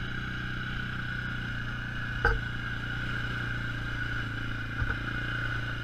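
Suzuki KingQuad 500 ATV's single-cylinder engine running steadily in low range, heard from a helmet-mounted mic. A sharp thump about two seconds in and two lighter ones near the end, which the rider puts down to the mic sitting too close to the helmet.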